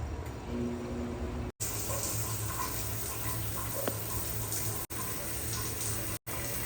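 Water running steadily, cut off for an instant three times.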